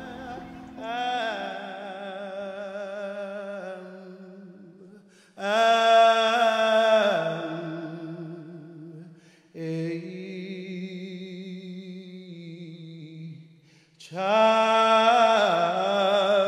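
A solo man's voice singing slow, long-held phrases with a wavering vibrato, each several seconds long with brief breaks between.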